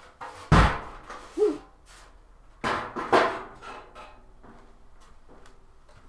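A loud, heavy thump about half a second in, followed a couple of seconds later by further knocks and handling clatter.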